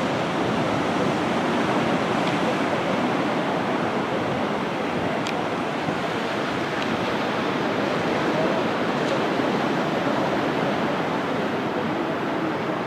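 Ocean surf breaking and washing onto a sandy beach, a steady rush of water noise.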